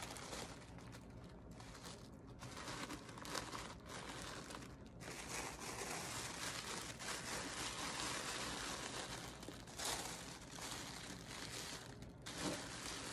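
Tissue paper crinkling and rustling as it is folded and pressed down over a gift basket.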